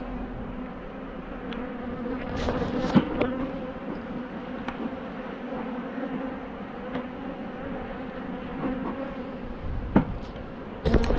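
Honeybees buzzing around an open hive, a steady hum, with a few sharp knocks, the loudest about three seconds in and near the end.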